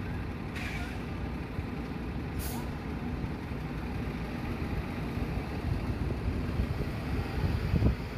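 Steady low rumble of a heavy air-braked vehicle, with two short hisses of released air about half a second and two and a half seconds in, and a thump near the end.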